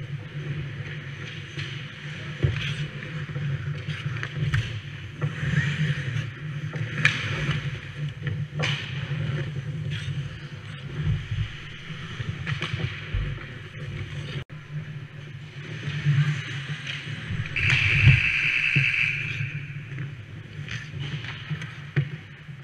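Ice hockey play heard from a camera inside the goal net: skate blades scraping the ice and sticks and pucks knocking, over a steady low hum. About three-quarters of the way through comes the loudest moment, a thump followed by a scraping hiss lasting about a second and a half.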